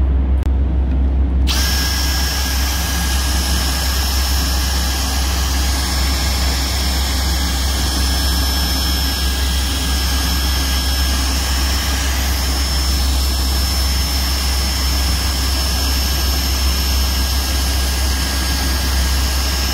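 Cordless drill spinning a wire brush against a tractor's steel wheel rim, scrubbing off surface rust and roughening the metal for paint. The drill starts about a second and a half in and then runs steadily, a whine over the scratching of the wires.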